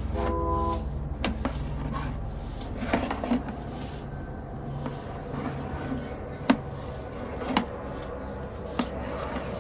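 Sewer inspection camera push cable being fed through the pipe: scattered sharp clicks and knocks over a steady low hum.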